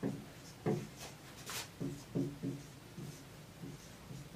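Marker pen writing on a whiteboard: a string of short, irregular strokes as letters and symbols are drawn.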